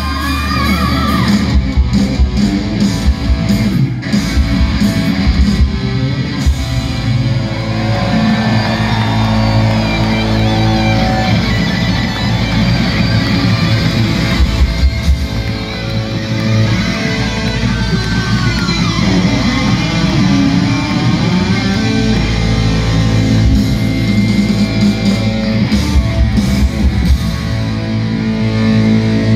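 Hard rock band playing live through a PA, heard from the crowd: distorted electric guitars, bass and drums, with a lead line that bends up and down in pitch.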